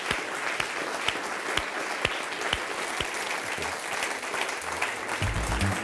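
Audience applauding steadily, with a few sharper claps standing out about twice a second. Music comes in near the end.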